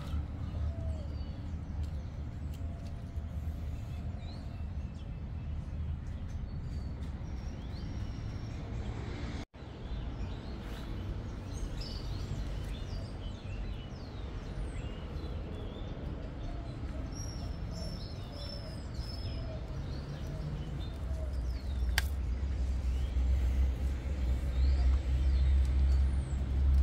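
Outdoor garden ambience: birds chirping here and there over a steady low rumble that grows louder near the end, with one sharp tick late on.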